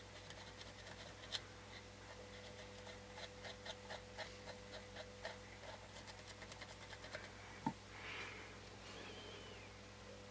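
Faint scratching and ticking of a cotton swab scrubbing the solder pads of a radio's circuit board clean after desoldering, with one sharper knock a little before the end.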